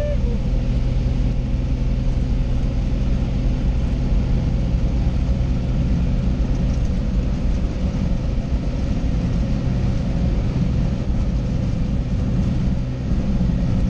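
Light aircraft's engine and propeller running with a steady drone, heard from inside the cabin.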